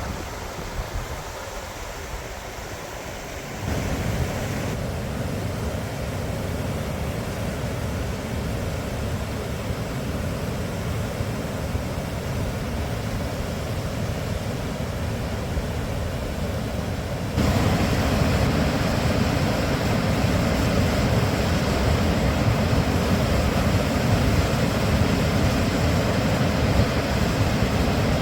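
Rushing water of the Deschutes River: a steady, even roar that jumps louder twice, about 4 seconds and about 17 seconds in.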